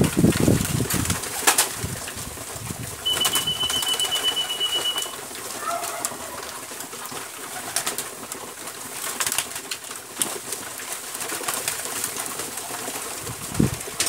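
A large flock of pigeons cooing, with wings flapping and many sharp pecking clicks as they feed on grain. A thin, steady high whistle sounds for about two seconds, starting some three seconds in.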